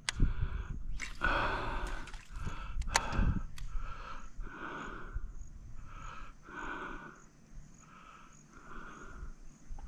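Lure cast from a spinning fishing rod, followed by the reel being wound in steadily: an even rhythm of short whirring pulses, about one and a half a second, one for each turn of the handle.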